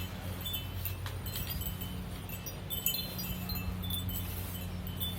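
Scattered short, high ringing notes at several pitches, like small metal chimes tinkling, over a steady low hum.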